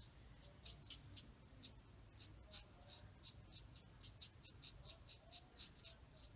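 Faint scratching of a Stampin' Blends alcohol marker tip on cardstock, in short shading strokes about three to four a second.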